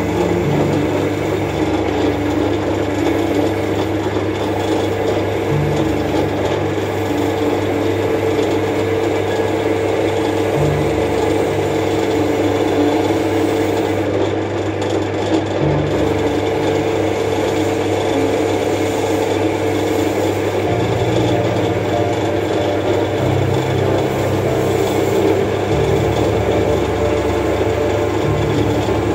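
Metal lathe running steadily, turning a bar of D6 tool steel while the integral tsuba of a knife blank is contoured, with a constant machine hum and whine.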